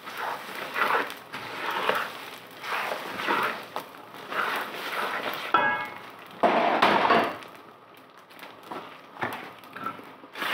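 Wooden spatula stirring and scraping a thick, gritty panjeeri mixture around a nonstick wok as it roasts, in repeated strokes about once a second, the loudest a little past halfway.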